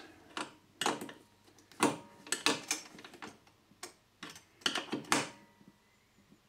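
A series of irregular metallic clicks as a spanner tightens the lock nut on the back of an earth clamp on a copper pipe. The clicks stop after about five seconds.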